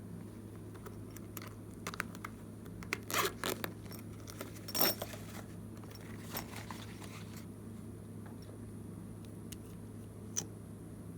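Glossy slime being worked by hand, giving scattered small sticky clicks and crackles, thickest from about two to seven seconds in, with a lone click near the end, over a steady low hum.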